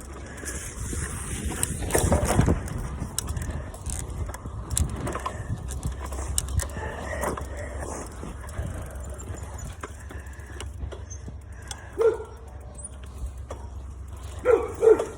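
Bicycle being ridden: a steady low rumble and rushing noise, many small clicks and rattles from the bike, and the rider's heavy breathing. There are a few short, louder sounds, once about twelve seconds in and twice near the end.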